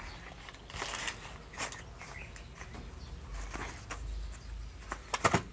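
Faint rustling and light taps of plastic and cardboard spare-parts packets being handled and moved by hand, with a few sharper clicks near the end.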